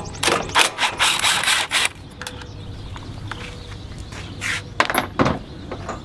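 Hand wrench loosening a carburetor mounting bolt in quick rasping strokes for about two seconds, then a few light clicks of metal being handled.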